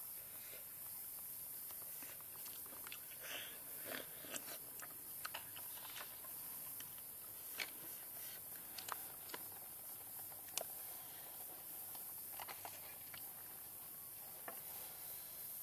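A person eating: quiet chewing with scattered sharp clicks and taps from bamboo chopsticks and a clay dish, over a steady high hiss.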